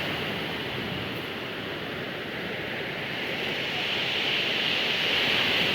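Sea surf washing ashore, a steady rushing that eases about a second in and swells up again near the end as the next wave comes in.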